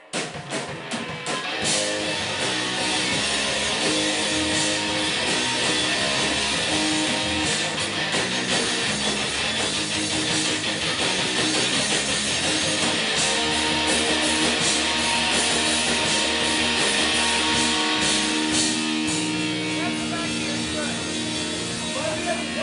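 Punk rock band playing live: loud distorted electric guitars, bass and drums, without vocals, starting abruptly right at the beginning.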